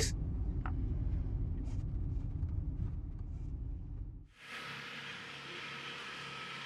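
Low, steady road rumble of a taxi driving. A little over four seconds in it cuts abruptly to a quieter, steady outdoor hiss.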